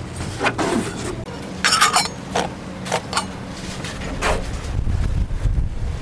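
Light metal camp cookware being handled on a table: a scattering of short clinks and knocks of metal on metal. A low rumble comes in about two-thirds of the way through.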